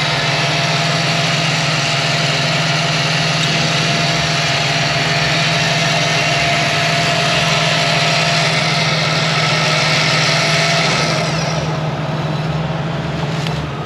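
Electric winch on a Jeep Cherokee XJ pulling in synthetic rope under load: a steady motor whine over the idling engine. The winch stops about eleven seconds in and the engine keeps idling.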